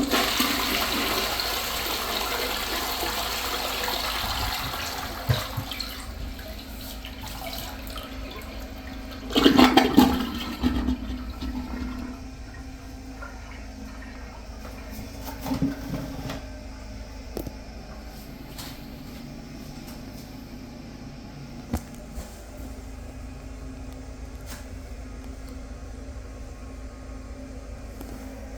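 Vortens toilet flushing: a rush of water for about five seconds as the siphon pulls the bowl out, a loud gurgle about ten seconds in, then water running steadily as it refills.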